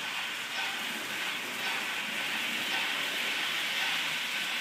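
Märklin model train running on its track: a steady whirring hiss of motor and wheels on metal rails, with no change in speed.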